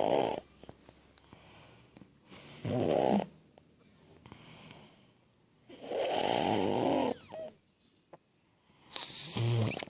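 Baby snoring: a rasping snore about every three seconds, with softer breathing between.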